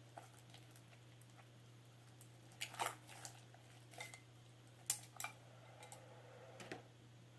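Scattered light clicks and knocks of plastic bottles and containers being picked up and handled on a table, with a cluster of several taps around the middle, over a faint steady hum.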